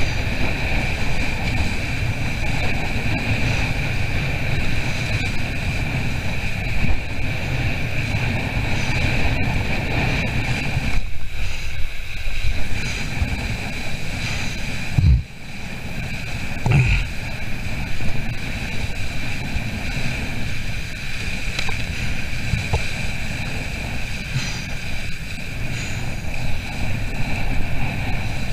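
Wind buffeting the microphone over the rush of water along the hull of a small sailboat under way. About halfway through, two short low knocks.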